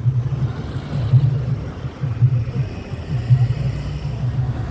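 Engine and road noise of a moving vehicle, heard from inside its cabin: a steady, uneven low rumble.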